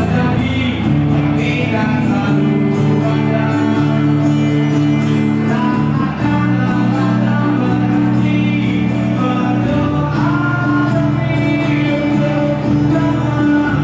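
A man singing a song to acoustic guitar, with held low notes underneath.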